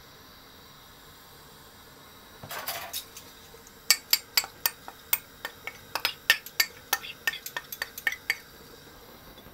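A short scrape, then a quick run of sharp clinks of a metal spoon against a cooking pot, about four a second for some four seconds.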